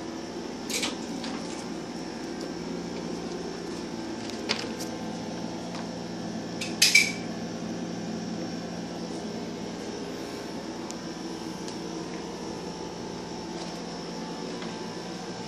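Steady mechanical hum of a running appliance, with a few sharp clicks, the loudest a quick pair about seven seconds in.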